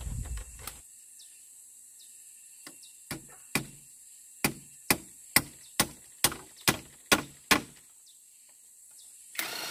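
A hand tool striking in a run of about ten sharp blows, roughly two a second, starting about three seconds in, as in hammering or chopping on the build.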